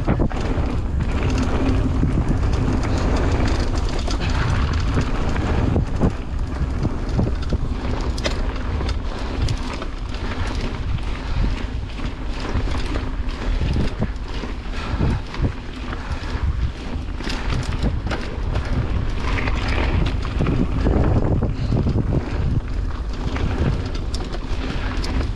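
Ragley Big Al hardtail mountain bike rolling down a dirt and stone trail: tyre noise on the loose surface with frequent short clicks and rattles from the bike over bumps, and wind buffeting the microphone throughout.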